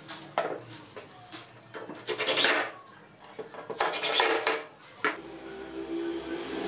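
Cordless impact driver driving screws into a wooden chair armrest, in three short bursts of rapid rattling a second or two apart. A steady hum starts near the end.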